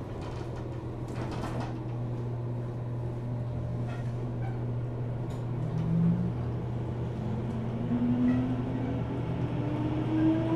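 Inside a 475 series electric train's motor car, the traction motors whine and rise steadily in pitch from about halfway through as the train accelerates, over a steady low hum. A few clanks come in the first two seconds.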